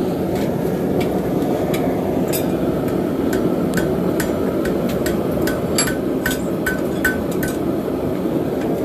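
Hammer blows on hot steel on a Hay Budden anvil, each with a short ring, coming about two a second through the middle of the stretch, over a steady low roar.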